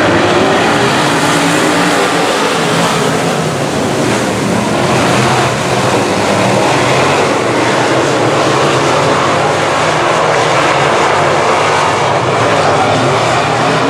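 Field of semi late model race cars running laps together: several engines drone steadily, their pitch rising and falling as they go round.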